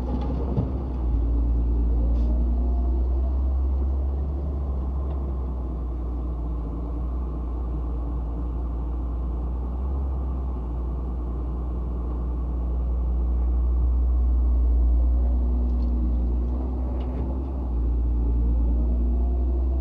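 Heavy diesel machinery, an excavator working beside a dump truck, running with a deep steady rumble. The engine note rises and falls twice, once a couple of seconds in and again near the end.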